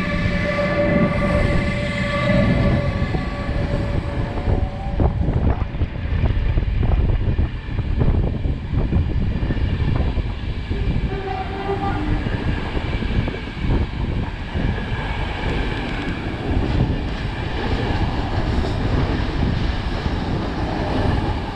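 CP Class 5600 electric locomotive rolling past with a whine of steady tones that fades within the first few seconds. Its Intercidades coaches follow, with a steady rumble and repeated clicks of wheels over the rail joints.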